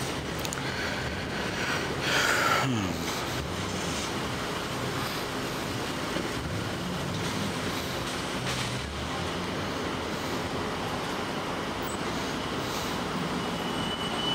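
Steady vehicle and traffic noise. About two seconds in, a brief louder sound ends in a falling tone, and a faint high steady tone sounds near the end.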